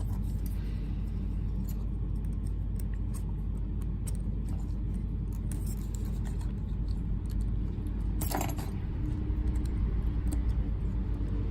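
Small metal lock parts clicking and rattling as a padlock core is reassembled and a circlip is fitted, with one sharper click about eight seconds in, over a steady low hum.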